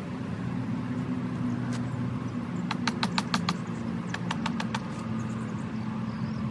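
Steady hum of honeybees flying around an open hive, with two quick runs of light clicks about halfway through.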